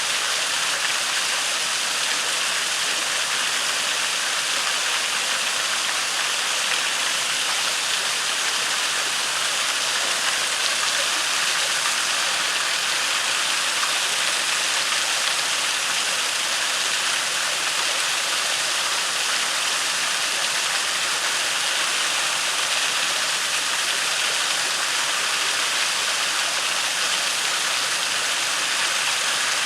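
Waterfall: a steady rush of falling and flowing water.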